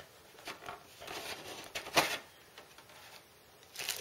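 Hands rummaging in a cardboard box of packed accessories: scattered rustles and light knocks, the loudest a sharp knock about halfway through, with plastic wrapping starting to rustle near the end.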